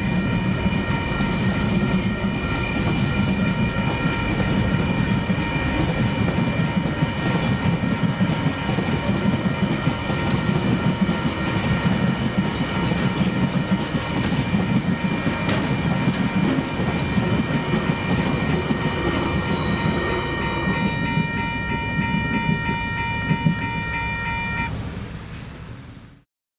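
TasRail mixed freight train's wagons rolling over a level crossing with a steady rumble and wheel clatter, while the crossing's Western-Cullen-Hayes electronic bell rings. Near the end the bell stops suddenly as the crossing deactivates after the train clears.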